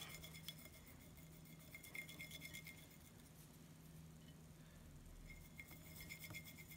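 Faint, quick ticking and scraping of a wooden stick stirring slime base and paint in a bowl, in two short spells: about two seconds in and again near the end.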